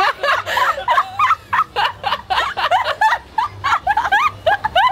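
People laughing hard in quick, high-pitched giggles, several short rising bursts a second.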